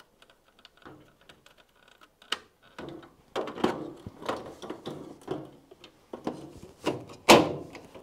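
Plastic clicks and knocks as a washing machine's control fascia panel is handled and pushed onto the cabinet frame, with one loud sharp snap about seven seconds in as it clips into place.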